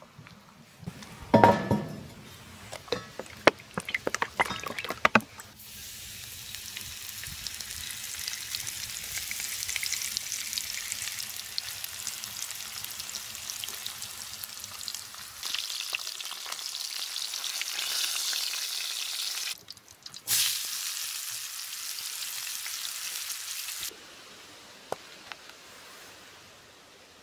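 Food sizzling in a frying pan: a steady hiss dotted with small crackles. It starts after a few seconds of knocks and clatter, and a short gap and a thump break it about twenty seconds in.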